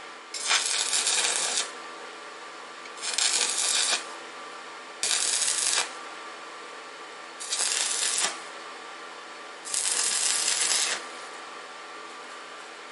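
Stick (arc) welding: five short welds laid on steel bar to splice two lengths together, each a loud crackling hiss of about a second, with a steady hum in between.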